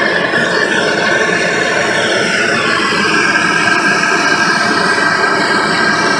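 BernzOmatic MAP-gas torch burning with a steady hiss and a high whistling tone as its flame is held on a crucible of molten silver.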